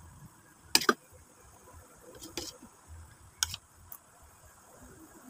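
Metal spoon and fork clicking against the plate and teeth while eating, a few sharp clicks with the loudest a quick pair about a second in, and faint mouth sounds between.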